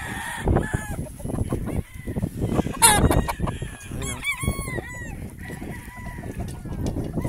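Gamefowl roosters crowing and clucking around the yard, with a run of short arched calls about four seconds in. Underneath are low thumps and rustling, with a sharp louder noise about three seconds in.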